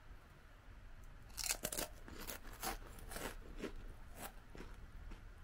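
Crunchy chewing of thick-cut, ridged Calbee potato chips: about ten sharp, irregular crunches, starting just over a second in and easing off near the end.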